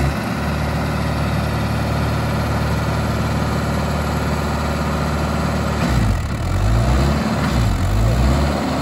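Mahindra Yuvo 575 4WD tractor's four-cylinder diesel engine running steadily as the tractor drives. Its revs rise and fall several times in the last few seconds.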